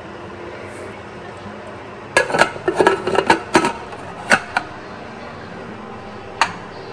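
Pressure cooker being closed: a quick run of metallic clinks and clunks as the lid is fitted and locked onto the pot, then a single click later on.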